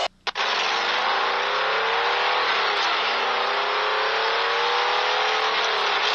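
RC scale truck's electric motor and geared drivetrain whining as it drives through mud, the pitch climbing with each burst of throttle and easing back between them. The sound cuts out briefly just after the start.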